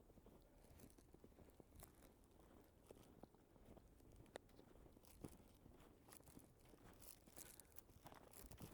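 Faint, irregular crunching of boots walking through snow, a little busier near the end.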